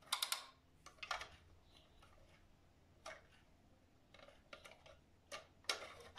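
Plastic shape-sorter toy and its plastic shape blocks being handled: a scatter of light clicks and taps, quiet overall.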